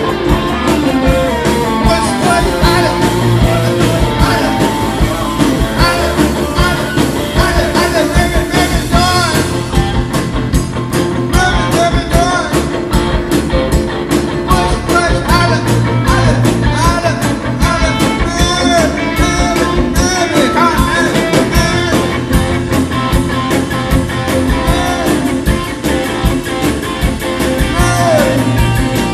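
Live rock band playing a song: a man singing lead over electric guitar, bass and a drum kit. The drumming gets busier about ten seconds in.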